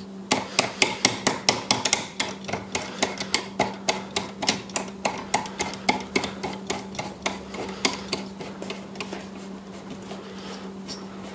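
Rapid run of sharp clicks, several a second, as a compound bow is worked in a yellow bow vise, fading out after about nine seconds, over a steady low hum.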